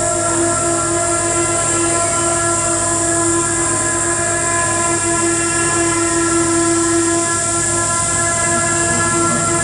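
Loud, steady experimental electronic noise drone from live electronics worked on a small mixer and effects units: several held tones stacked over dense hiss and a fluttering low rumble.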